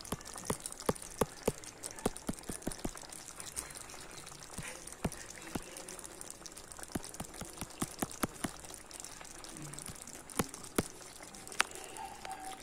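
Thick dosakaya-and-tomato curry simmering in a pan, its bubbles bursting in irregular sharp pops over a low hiss.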